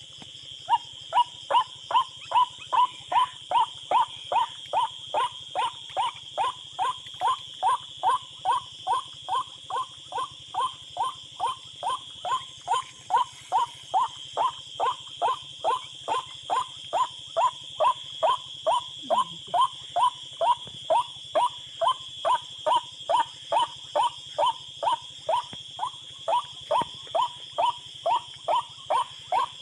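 A bird call: one short note repeated very evenly about twice a second, starting about a second in, used as a lure for birds at night. A steady high insect buzz runs behind it.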